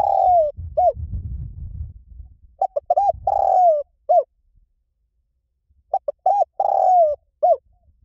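Spotted dove cooing: a phrase of two short coos, one long drawn-out coo that falls in pitch, and a closing short coo, repeated about every three seconds, the first phrase already ending as the sound begins. A low rumble runs under the first two seconds.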